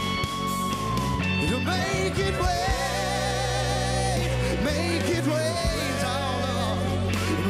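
Live band playing a slow rock song: an electric guitar holds a long note, then singing comes in with long, wavering held notes over steady bass.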